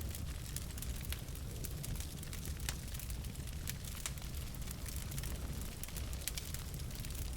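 Wood fire burning in a fireplace: logs crackling and popping with many small irregular snaps over a steady low rumble of the flames.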